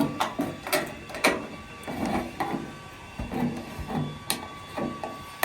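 Thin aluminum gutter-coil stock being cut open by hand, with irregular sharp clicks and scraping of the sheet metal.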